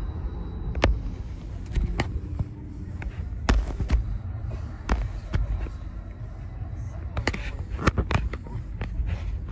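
Outdoor crowd background: distant voices over a low rumble, cut by a dozen or so sharp knocks at irregular intervals.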